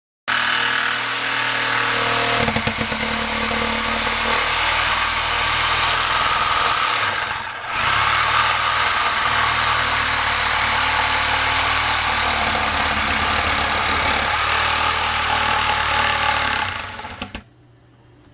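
A motor-driven machine or power tool running steadily, with a brief dip in its sound about seven and a half seconds in, and shutting off near the end.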